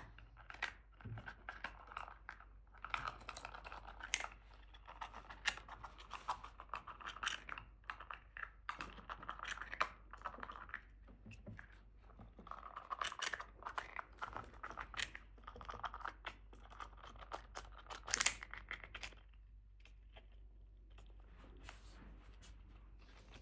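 Small pet rodent gnawing and crunching through a hard piece of food with its teeth, in runs of rapid sharp clicks broken by short pauses, dying down to faint nibbling near the end.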